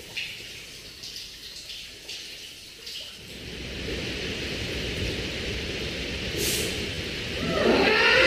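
Water dripping on a wet stone floor, a few sharp drips over a quiet background, then a steady rushing noise grows louder. A choir begins singing over it near the end.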